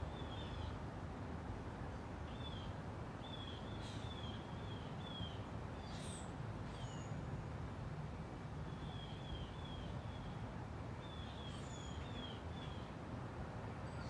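Encon Crompton Greaves Princess ceiling fan running at steady speed, giving a constant low rushing noise. Small birds chirp over it in short runs of quick high notes, with a few sharp upward-sweeping calls.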